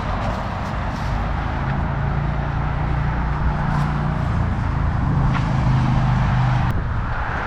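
A car running steadily under a continuous rushing noise, with a low engine hum that is strongest from about two to seven seconds in.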